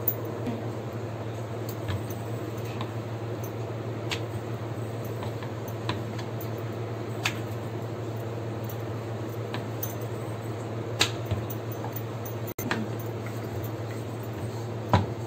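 A wooden rolling pin rolling out rice-flour roti dough on a board, with a few light knocks a second or more apart, over a steady low hum.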